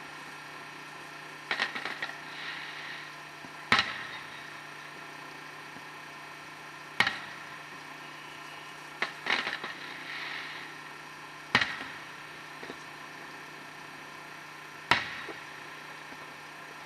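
Fireworks going off: single sharp bangs every few seconds, some in quick pairs followed by a brief crackle, over a steady low hum.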